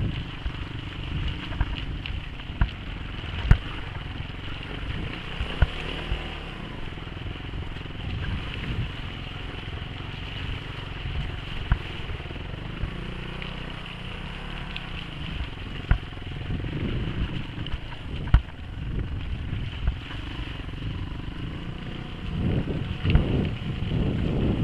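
Suzuki DR350 trail bike's single-cylinder four-stroke engine running as it is ridden over a rutted, muddy dirt track, with occasional sharp knocks from the bike jolting over bumps. The engine gets louder about two seconds before the end.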